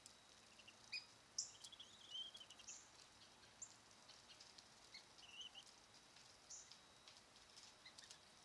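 Black-bellied whistling duck ducklings peeping: faint, scattered high chirps, with short runs of quick chirps about two seconds in and again about five seconds in.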